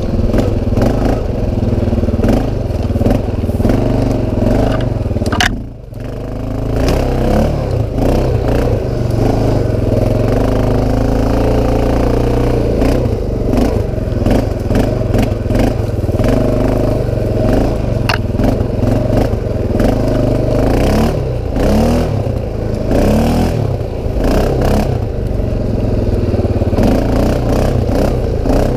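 CFMoto 500 ATV engine running under load and revving as the quad is ridden through mud, with clattering and scraping from the machine. The engine note dips sharply for a moment about six seconds in, then picks up again.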